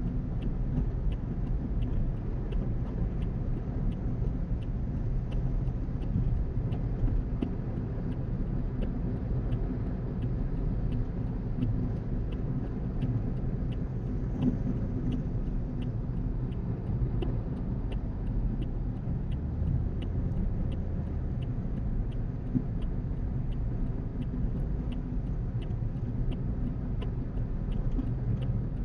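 Steady low road and engine rumble inside a car cruising at highway speed. A faint regular ticking, a little under two ticks a second, runs along under it.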